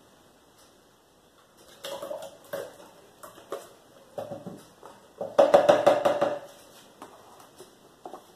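Knocks and clatters of kitchen items being handled: boxed cream cartons picked up and set down among bottles and containers. The knocks come irregularly from about two seconds in, with a denser, louder run of rattling about five and a half seconds in.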